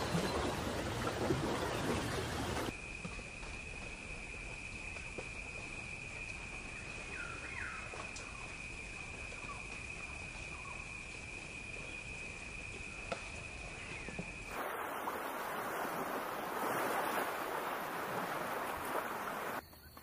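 Outdoor nature ambience that changes abruptly twice. It begins as a dense rushing noise. From about three seconds in there is a steady high-pitched whine, with a few faint bird chirps in the middle. A louder rushing haze returns about three-quarters of the way through.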